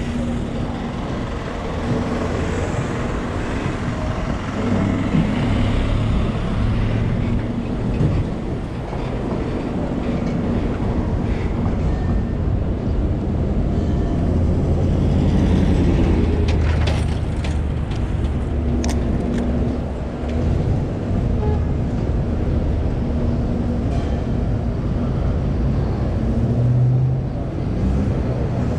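City street traffic: a steady low rumble of vehicle engines running and passing, with a few brief sharp sounds about two-thirds of the way through.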